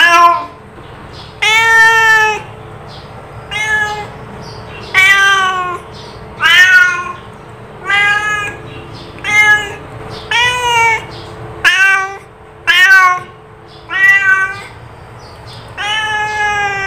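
A cat meowing over and over, about a dozen short calls roughly one to one and a half seconds apart, each rising and then falling in pitch. The last call is longer and drawn out.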